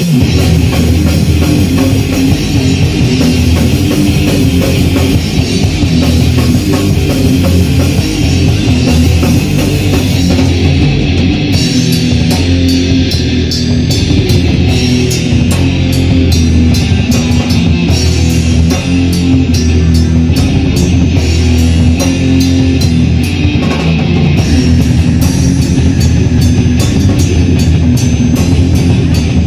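Live heavy metal band playing loudly: distorted electric guitars over a drum kit, through the stage amplifiers. The drumming turns faster and denser about twelve seconds in.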